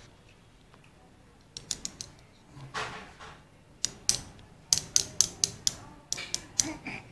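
A run of sharp, irregular clicks and taps. They start about a second and a half in and come several a second in the second half.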